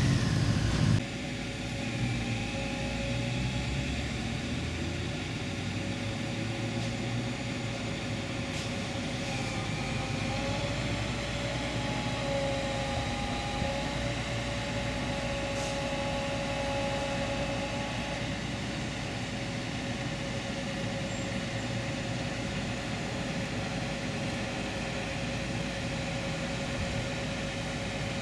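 Utility bucket truck running steadily: a low engine drone with a steady whine over it that wavers slightly in pitch partway through.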